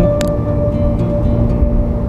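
Background acoustic guitar music, a plucked note ringing out and fading, over a steady low rumble.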